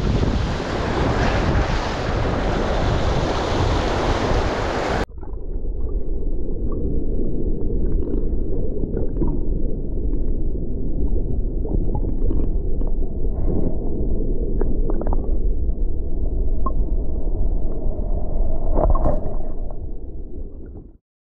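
Sea surf and wind buffeting the microphone at the water's edge; after a sudden cut about five seconds in, the muffled low rush of seawater heard through an underwater camera, with small bubbling clicks, which stops abruptly near the end.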